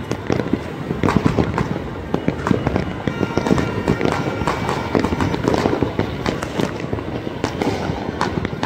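Fireworks and firecrackers going off in many places at once, a dense, unbroken rattle of overlapping bangs.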